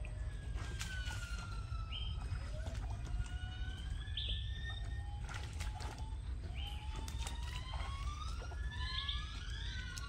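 Long whistle-like tones gliding up and down in pitch, overlapping more and more in the last few seconds, over sharp splashes and sloshing from wading in shallow water and a steady low rumble.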